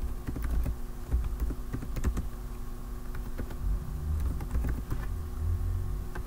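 Typing on a computer keyboard: an irregular run of keystroke clicks as a short phrase is typed out, over a faint steady hum.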